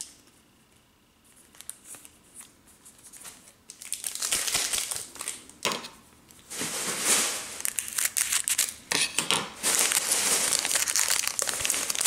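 Wrapper of a Tim Hortons hockey card pack crinkling and tearing as it is handled and ripped open. Faint at first, then loud, dense crinkling from about four seconds in, with a short pause near six seconds.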